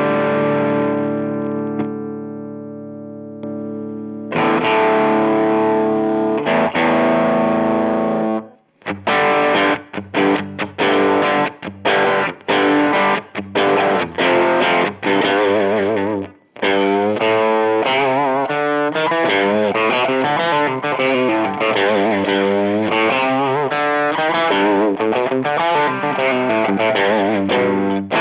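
Distorted electric guitar played through a Chevtone Effects Messiah Drive, a British-amp-style overdrive pedal. Held chords ring out, then short choppy chords come in about nine seconds in, and from about halfway a fast lead line with bent and wavering notes takes over.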